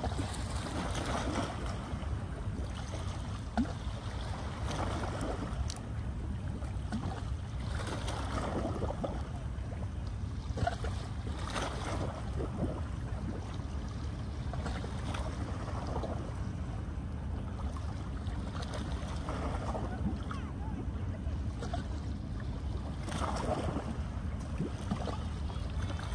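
Kayak paddle strokes splashing and swishing through the water every few seconds, over a steady low rumble of wind on the microphone.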